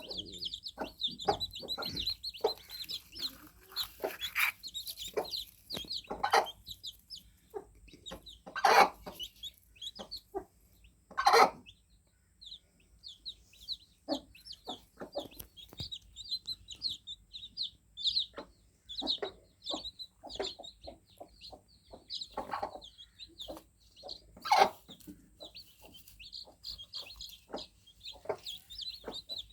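Newly hatched chicks cheeping: a near-constant stream of short, high peeps from several birds. Scattered sharp knocks punctuate it, the loudest about nine, eleven and twenty-five seconds in.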